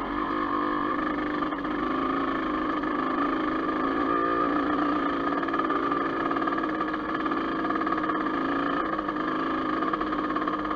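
Dirt bike engine running at a fairly steady pitch under way, with only small rises and falls.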